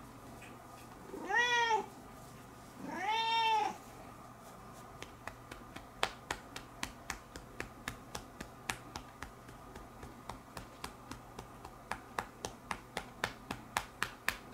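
Domestic cat meowing twice, each call rising then falling in pitch, the second a little longer. From about five seconds in, a regular run of sharp clicks follows, about two or three a second.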